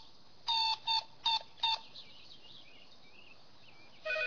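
Toy telephone buttons beeping as they are dialled: four short electronic beeps in the first two seconds. Near the end a telephone starts to ring.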